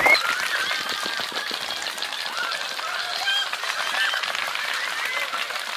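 A crowd of schoolchildren cheering and shouting during a footrace, many shrill calls overlapping at once.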